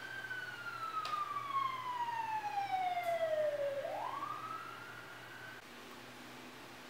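A person whistling one long, siren-like note that falls slowly for about four seconds, then sweeps quickly back up and cuts off.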